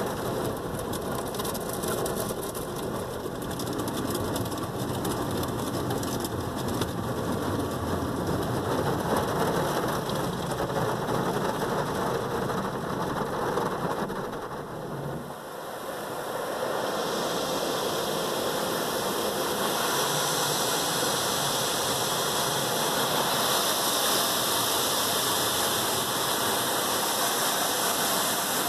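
Automatic car wash spraying water onto a car's windshield and body, a steady rain-like hiss heard from inside the cabin. A low rumble under it stops about halfway through, and the spray then comes on heavier and hissier.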